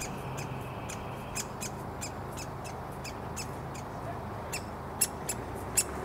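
Woodpecker fledgling giving short, sharp, high begging calls about three times a second, two louder calls near the end: a hungry chick calling for food.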